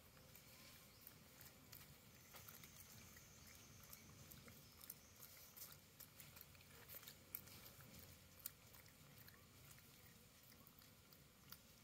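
Near silence: faint, scattered clicks and crackles throughout, with a faint high steady tone lasting about two seconds, starting about two seconds in.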